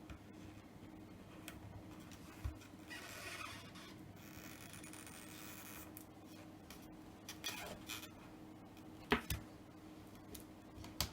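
Faint scratching, rubbing and a few sharp clicks of a tool working inside an opened iPhone 6s, digging for the end of a snapped battery adhesive pull tab, over a faint steady hum.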